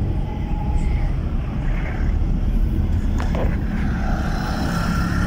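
Steady rumble of a car's engine and road noise heard from inside the cabin while riding.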